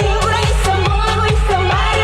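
A woman sings a trot song live over an electronic dance backing track with a steady kick-drum beat.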